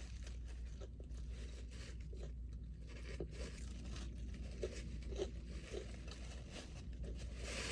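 Faint crunching and crinkling, with scattered small clicks, from food being eaten and its paper wrappers handled, over a low steady hum. A slightly louder rustle comes near the end.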